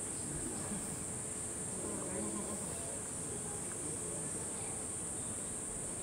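Cicadas in summer trees, buzzing as one steady high-pitched drone without a break.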